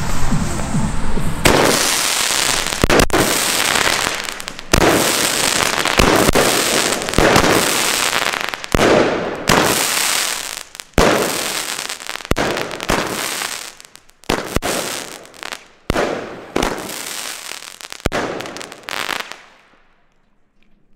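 An 11-shot, 30 mm crackling-flower firework battery firing: a string of shots roughly one to one and a half seconds apart, each followed by a burst of crackling stars. The shots stop about 19 seconds in.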